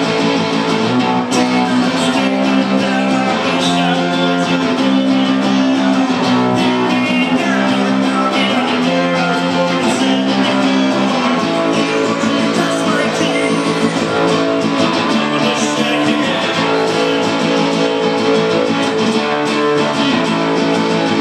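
Acoustic guitar strummed steadily through a live song, its chords changing about once a second in a repeating pattern that shifts to a new progression about halfway through.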